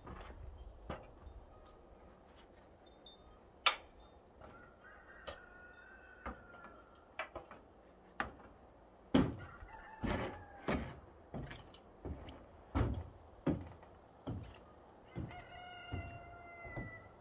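Knocks and thuds of boots on an aluminium stepladder and a ribbed metal roof as a long wooden board is carried up. A rooster crows in the background, once a few seconds in and again near the end, with chickens clucking.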